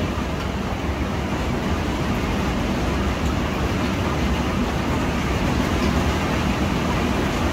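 Steady, even hiss of heavy rain, with a Xiaomi handheld garment steamer running as it is pressed against cloth.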